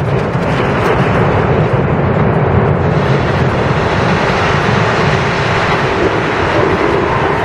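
Steady, loud rumble of a high-rise building collapsing in a controlled demolition.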